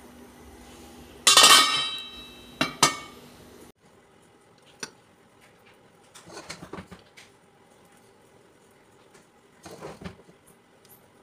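Serving spoon clanking against a metal cooking pot while cooked chana pulao is scooped, a ringing clatter about a second in followed by two sharp knocks. After that, a few fainter clinks and scrapes of dishware.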